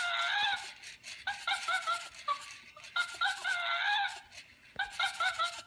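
Spin Master Zoomer Chimp robot toy making electronic chimp chatter and hoots through its speaker, in a string of short pitched calls that bend up and down.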